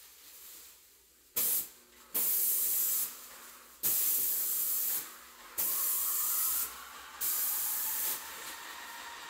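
Drywall-mud spray gun hissing in five trigger-pulled bursts as it sprays a yellow-tinted guide coat onto gypsum wall panels: a short one, then four of about a second each, each starting and stopping abruptly. Near the end the spraying stops and a fainter steady whine remains.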